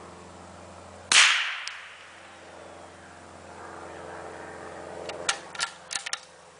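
A single shot from a CZ 452 bolt-action .22 LR rifle, a sharp crack with a short decaying tail. About four seconds later comes a quick run of four or five smaller metallic clicks, the bolt being worked to chamber the next round.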